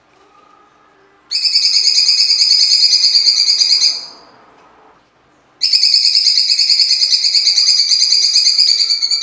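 Blue-winged leafbird (cucak cungkok) singing two long, rapid, harsh trilling phrases, the second starting about a second and a half after the first ends. This is the fast, full 'tembakan' song that keepers prize in the species.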